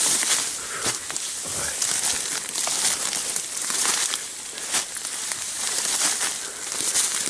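Grass and nettles swishing against clothing as a person pushes through dense undergrowth on foot, in irregular surges of rustling about once a second.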